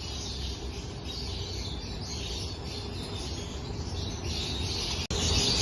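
Many lovebirds chattering and chirping together in a steady dense twitter, growing louder after a brief break about five seconds in.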